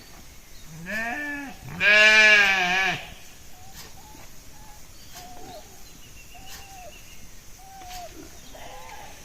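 Sheep bleating twice, a short bleat about a second in and a longer, louder one right after, followed by faint short calls every second or so.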